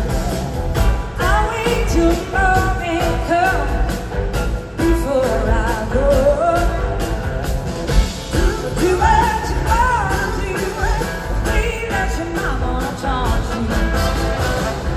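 Large blues-rock band playing live: drums, bass, organ, electric guitars and horns, with a lead line that slides and wavers in pitch over a steady groove.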